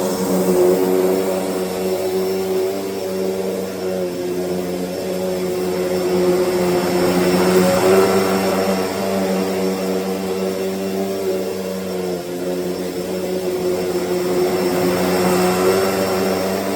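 Hoover Deluxe Elite Rewind upright vacuum cleaner running, a steady motor hum with air rush whose loudness swells and eases gently. It is fitted with a new-old-stock Elite Rewind dirt bottle, and the owner finds it sounds and runs a whole lot better with it.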